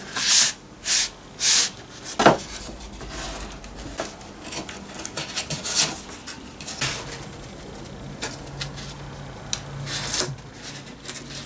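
Thin wood-veneer panels handled and pressed by hand against a wooden diorama base, with masking tape pressed onto them: three short, loud scraping rustles in the first second and a half, a knock at about two seconds, then quieter rubbing and small knocks.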